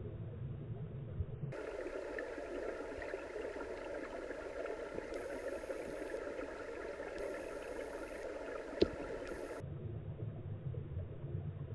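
Muffled underwater noise picked up through a GoPro Hero4's waterproof housing: a dull low rumble that turns into a brighter hiss for most of the middle. There is one sharp click near the end.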